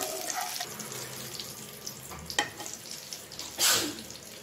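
Hot oil sizzling in a kadai as fried curry leaves are lifted out with a perforated metal spoon. There is a sharp click about two and a half seconds in, and a short, loud scrape near the end as the leaves go into a glass bowl.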